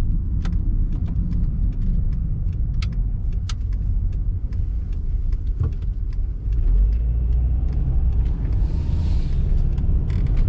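Car interior road noise while driving: a steady low rumble of engine and tyres, growing a little heavier about two-thirds of the way through, with scattered light clicks.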